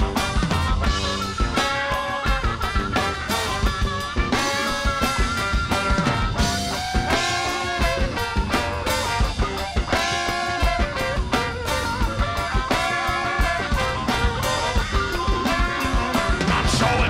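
Live band playing: a harmonica solo of held, bending notes over electric guitar and a drum kit.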